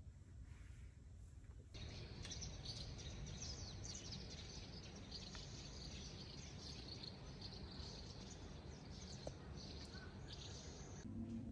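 Faint outdoor ambience of many small birds chirping over a low steady rumble, starting about two seconds in after near silence and stopping just before the end.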